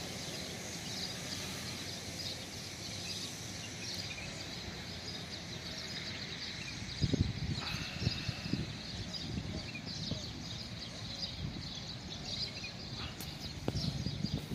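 Outdoor ambience: a steady background noise with faint scattered bird chirps, and a few soft low thumps about seven seconds in and again near the end.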